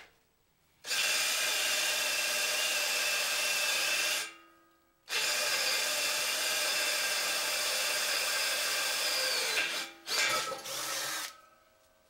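Cordless drill boring into the steel end of an old air compressor tank, with a steady whine. It runs for about three seconds, stops for a second, runs again for about five seconds, then gives a couple of short bursts near the end.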